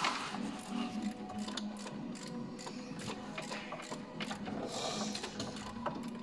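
VW Golf TDI diesel engine idling, with a rapid, steady mechanical clatter.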